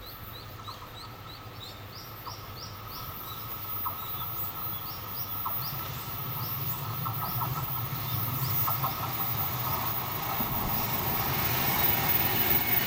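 JR Freight EF210 electric locomotive hauling a container freight train as it approaches, its rumble and wheel-on-rail noise growing steadily louder. A bird chirps repeatedly, short rising calls about twice a second, through the first half.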